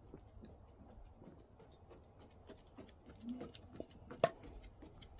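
Soft pattering of a duck's webbed feet walking on a wooden deck, with a sharper tap just past four seconds.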